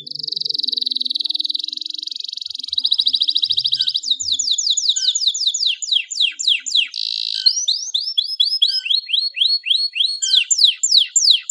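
Domestic canary singing, switching between fast repeated phrases: a rapid buzzy trill for about four seconds, then quick series of sharply falling whistled notes, several a second, broken by a short trill near the middle. This is the vigorous full song of a canary in song, used as a lure to set silent canaries singing.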